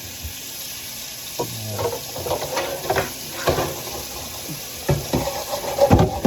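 Tap water running into a kitchen sink as dishes are washed by hand. About five seconds in, music with a steady beat comes in.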